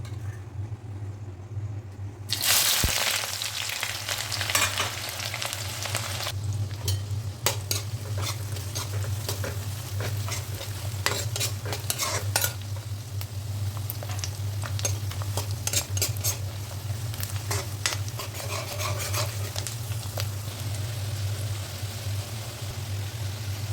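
Brinjal frying in a pan: a loud sizzle starts suddenly about two seconds in, then settles into a quieter fry with the clicks and scrapes of a spatula stirring against the pan. A steady low hum runs underneath.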